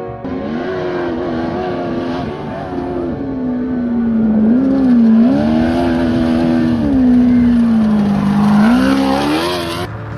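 Off-road race buggy's engine running hard as it drives past on a dirt course. Its pitch dips and rises with the throttle and climbs steeply just before the sound cuts off abruptly near the end.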